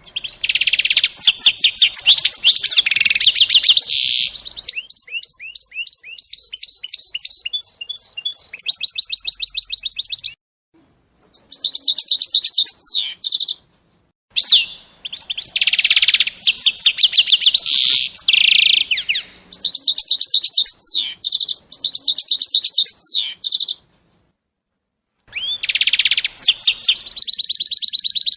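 A small songbird singing loud, high-pitched phrases of rapid trills and warbles, broken by three short spells of complete silence.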